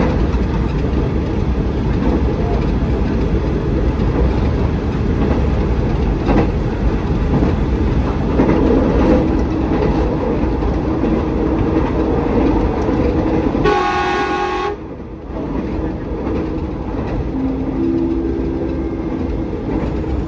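Electric commuter train running at speed, heard from inside the carriage: a steady rumble of wheels on rail and car body. About two-thirds of the way through, a horn sounds briefly for about a second.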